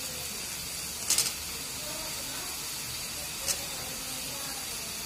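Steady hiss of gravy cooking in a metal pan. A quick cluster of sharp clicks comes about a second in and a single click about three and a half seconds in, as chunks of ridge gourd are dropped into the pan.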